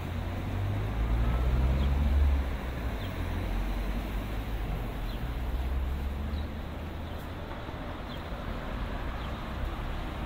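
City street traffic: a vehicle's low rumble swells as it passes, loudest about one to two seconds in, then fades over a steady background of traffic. Faint short bird chirps are heard now and then.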